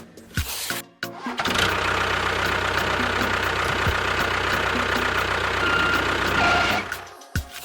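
A motor running steadily. It starts about a second in and stops shortly before the end.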